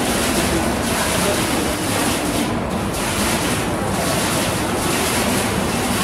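Digital water-curtain fountain: water released from a row of overhead nozzles falls in patterns and splashes into the basin below as a steady rushing splash.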